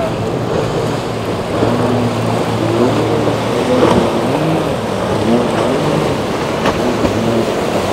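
Motorboat engines running through rough inlet water, their pitch rising and falling in short swells over a steady wash of waves and wind.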